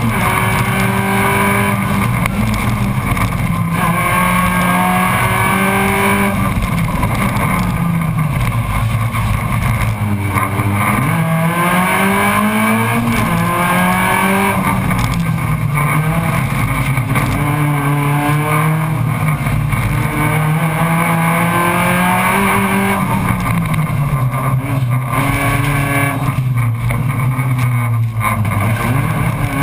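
Race car engine heard from inside the stripped cabin, driven hard. Its pitch repeatedly climbs under acceleration and drops back with gear changes and lifting off for corners.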